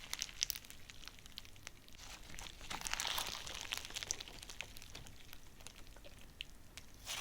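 Thin plastic wrapping crinkling and crackling as it is handled close up: a scatter of small crackles, busiest about three seconds in.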